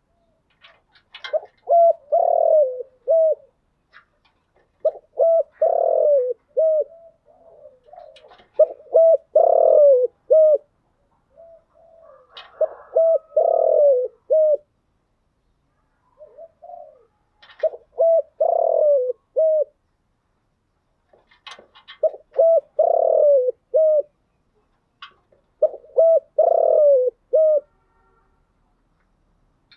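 Spotted dove cooing: a low, multi-note coo phrase repeated about seven times, roughly every four seconds, each phrase built around one longer, louder note.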